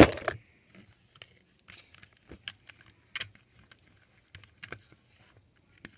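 Faint, scattered clicks and taps from small plastic items being handled on a tabletop, a few light ticks every second or so.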